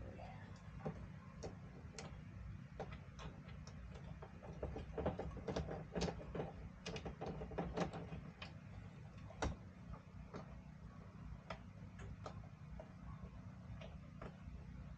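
Irregular clicks and light metallic rattles of a hand tool and small screws as Torx screws are worked out of a Jeep fender. The clicks come thickest a third of the way in, over a steady low hum.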